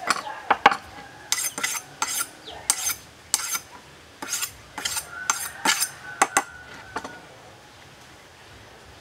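Kitchen knife being honed against the blade of another large knife: a run of quick metal-on-metal scrapes with a faint ringing, stopping about seven seconds in.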